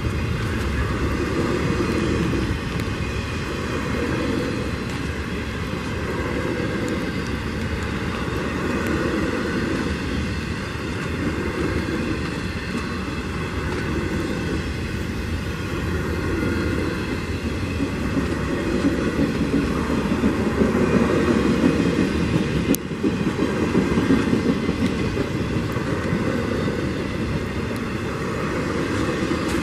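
Norfolk Southern intermodal freight train's cars, loaded with semi-trailers, rolling past: a continuous rumble and clatter of steel wheels on the rails that swells every couple of seconds as the cars go by.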